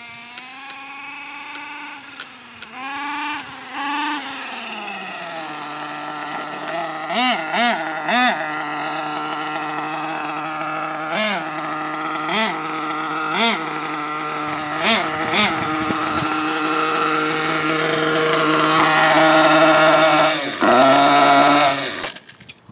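Small nitro RC truck engine idling, with a string of short throttle blips that briefly push its pitch up. It gets louder near the end and then cuts off abruptly.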